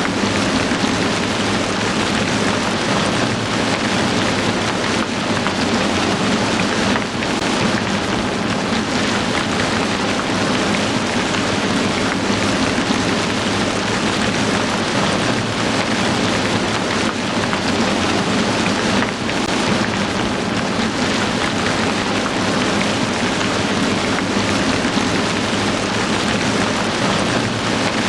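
Heavy rain falling steadily: a dense, even hiss with no break.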